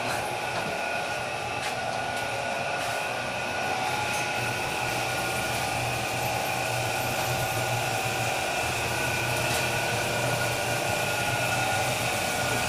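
Steady whirring drone of bakery machinery, a low hum with a few steady higher tones over an even rushing noise, unchanging throughout.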